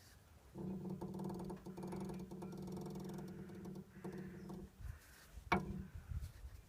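Anti-roll bar end link on a 2007 Suzuki Grand Vitara creaking as the steering wheel is turned: one long pitched creak of about four seconds, like a spring being stretched, then a short sharp creak about five and a half seconds in. The creak is the sign of a faulty stabiliser link.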